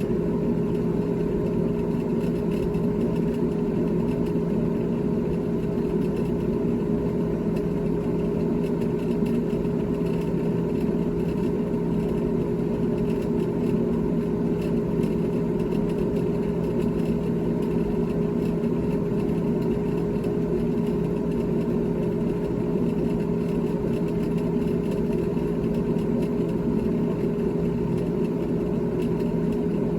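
GE GTH18XCTZRBB refrigerator running, a steady mechanical hum with a few fixed pitched tones that holds unchanged throughout.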